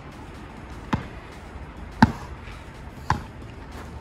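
A basketball dribbled slowly on a hard outdoor court: three bounces about a second apart.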